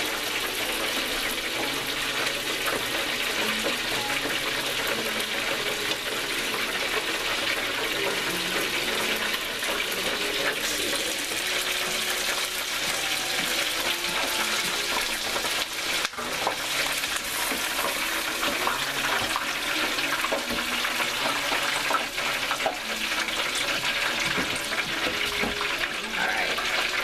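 Chicken tenders deep-frying in a T-Fal electric deep fryer's oil at about 180 °C (356 °F): a steady bubbling sizzle.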